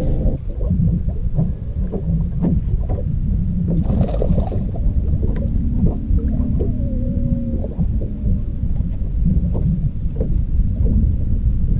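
Steady low rumble of wind and water around a bass boat, with water slapping the hull in quick irregular knocks. A faint wavering whine rises and dips about six seconds in.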